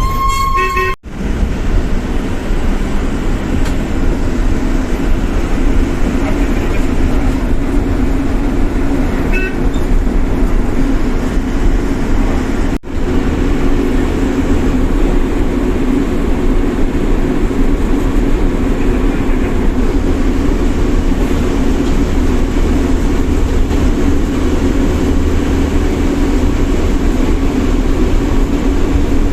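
Bus engine and road noise from inside the moving bus, a steady drone. A vehicle horn toots briefly right at the start.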